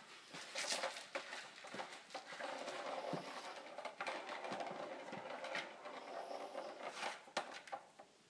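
Kitten playing on a tiled floor: an irregular run of soft taps and scuffles from its paws and claws.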